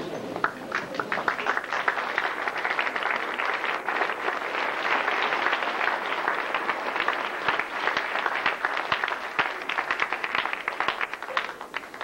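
Audience applauding: a dense patter of many hands clapping that thins out and stops near the end.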